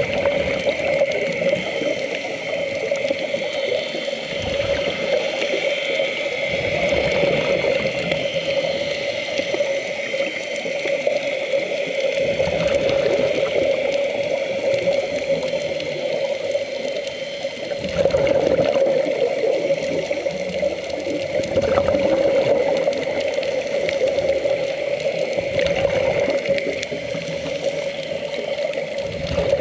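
Water in a large aquarium tank, with a steady hum from a pump that holds a low tone and a higher whine throughout. Low surges of moving water come every few seconds.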